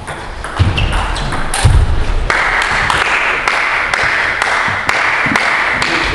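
Table tennis rally: the ball clicking off paddles and table, with players' feet thudding on the wooden floor, in the first two seconds. Then a steady hiss sets in, with light taps about twice a second, and cuts off near the end.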